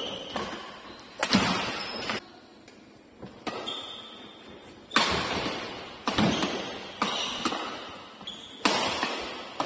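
Badminton rackets striking the shuttlecock in a doubles rally, sharp cracks that echo in a large indoor hall. There are two hits about a second in, a lull, then a fast run of hits roughly every half second to a second, with brief high squeaks in between.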